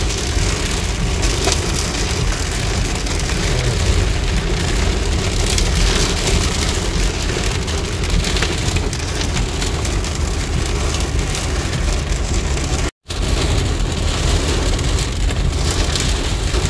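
Heavy rain and hailstones pelting a car's windshield and roof, heard from inside the cabin as a dense, steady patter with many sharp hits, over the low rumble of the car on a flooded road. The sound drops out completely for a moment about thirteen seconds in.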